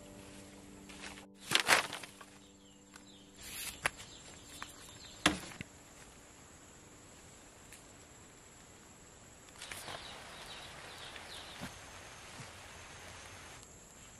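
Background music fades out. A few sharp knocks of bamboo poles being handled follow, then several seconds of rustling and scraping as bamboo stakes are worked into the garden soil. A faint high insect drone comes in near the end.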